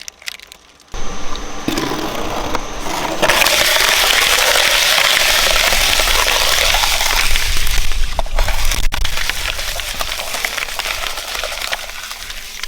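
A shredder's motor starts about a second in and its cutters crunch through an object with dense cracking and crackling, loudest from about three seconds in and easing off near the end.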